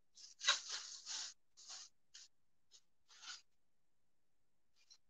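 Short scraping and rubbing noises close to the phone's microphone, in a cluster of uneven bursts over the first three and a half seconds, with a faint one near the end.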